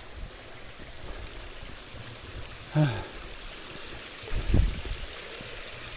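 Steady rush of flowing stream water, with a short vocal grunt about three seconds in and a low thud about a second and a half later.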